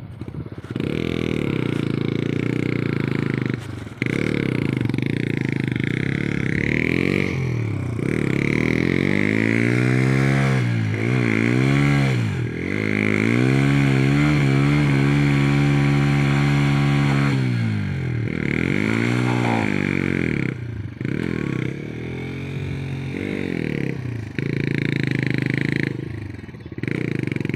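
Motorcycle engine revved up and down again and again, with a steady high stretch about halfway through, as the bike labours through deep mud with the rider paddling along on his feet.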